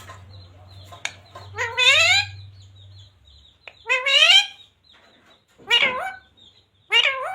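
A ringneck parrot gives four short, loud calls, each bending in pitch, spaced a second or two apart.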